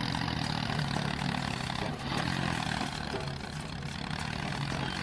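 A motor running steadily with a low, even hum and a noisy whirr over it, slightly quieter for a moment about two seconds in.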